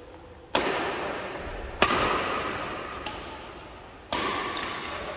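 Badminton rally: rackets striking the shuttlecock, three sharp hits and one lighter one about a second apart, each ringing on in the hall's echo.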